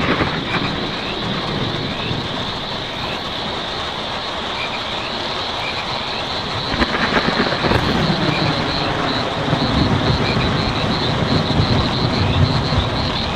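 Steady rain drumming on a tin roof, with a low rumble of distant thunder swelling from about halfway in. A high pulsing buzz and faint repeating chirps run through the rain.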